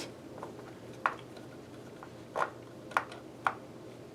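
A few light, sharp clicks and taps from hands working small hard parts of a NAS enclosure and its hard drive, spread a second or so apart over a faint room hum.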